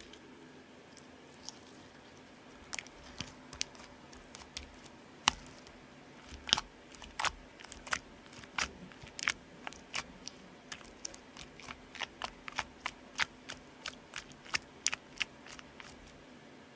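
Homemade borax slime pressed and poked with the fingers, giving sharp sticky clicks and pops: a few scattered ones at first, then two or three a second from about six seconds in.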